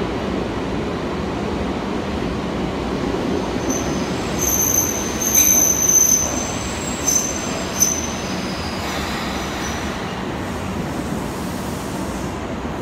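Nagano Electric Railway 8500-series electric train (ex-Tokyu 8500) pulling into an underground station platform: a steady rumble of wheels and motors, with high-pitched squeals several times from about four to eight seconds in as it slows.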